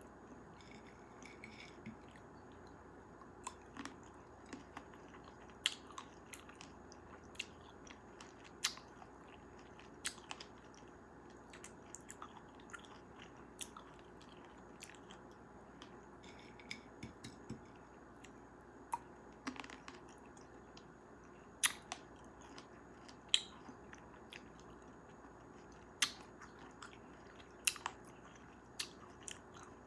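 Close-miked chewing and biting of cherries, with irregular sharp, wet mouth clicks scattered throughout.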